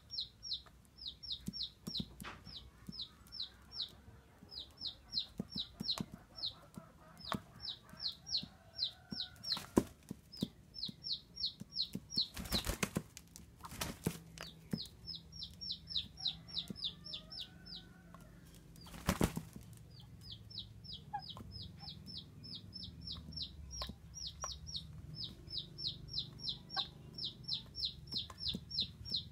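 Rapid, high chirping from a small bird, short falling notes about four to five a second in long runs with pauses. A few loud flaps or knocks break in, the loudest about ten and nineteen seconds in, as a rooster flaps while it is handled.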